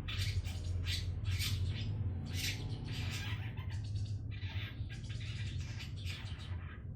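A two-month-old long-tailed shrike (cendet) practising its song: repeated harsh, scratchy notes, about one or two a second, growing softer in the second half. A steady low hum runs underneath.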